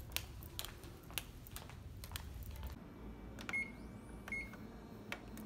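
Footsteps on a hard tiled floor, about two steps a second, then buttons pressed on a Lanier photocopier's keypad, each press answered by a short high beep, twice.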